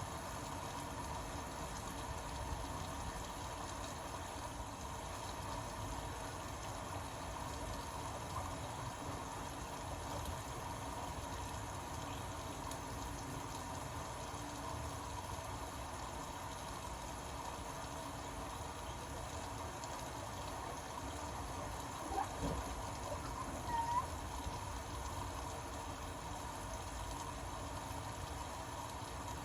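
Indesit Innex BWE 91496X front-loading washing machine mid-cycle: a steady sound of water running and sloshing inside the machine. Two brief high chirps come a few seconds before the end.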